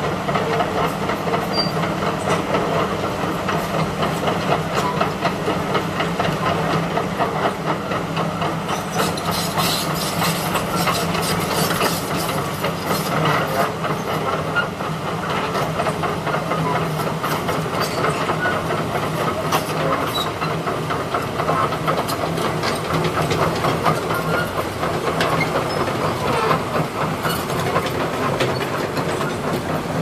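Komatsu PC200 and PC228 crawler excavators travelling on their steel tracks: a steady diesel engine drone with the rattling clank of the track links, the clanks growing busier about a third of the way in.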